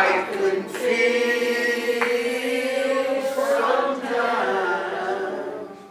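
Congregation singing a slow, unaccompanied devotional hymn together, drawing out each note at length, in the old deacon-led style.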